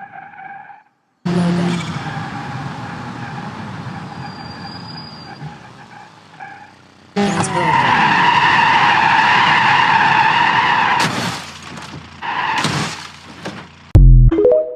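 Car sound effects in short edited clips: vehicles and tyres skidding, with a long squealing skid in the middle. A loud thump comes near the end.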